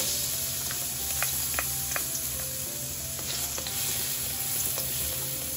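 Chopped garlic sizzling in hot oil in a nonstick wok. The sizzle starts suddenly as the garlic goes in, and a spatula stirring it makes a few light clicks against the pan.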